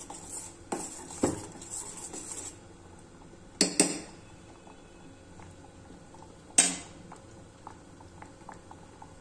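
Metal spoon stirring and scraping milk in a stainless steel saucepan, then clinking against metal: a quick double clink about three and a half seconds in and a louder single clank at about six and a half seconds. Afterwards the milk simmers with faint small pops.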